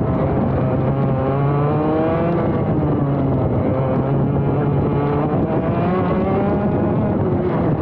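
ROK GP Junior 125cc two-stroke kart engine heard onboard at racing pace. Its pitch climbs for a second or two at a time and then drops back, several times over, as the driver accelerates out of corners and lifts for the next.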